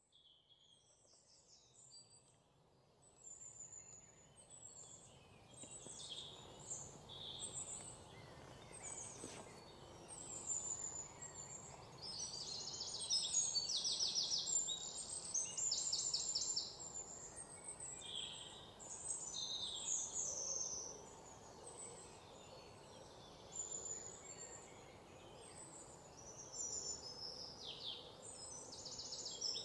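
Birdsong: several small birds chirping and trilling, with fast runs of repeated notes over a faint steady hiss, fading in gradually over the first ten seconds or so.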